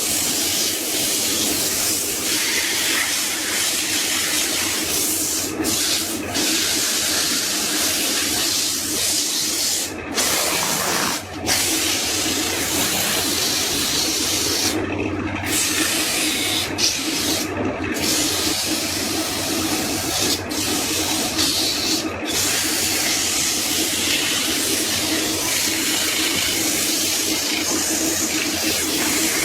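A woodworking power tool running steadily on wood, giving a continuous rushing noise with a hum underneath. There are a few brief dips along the way.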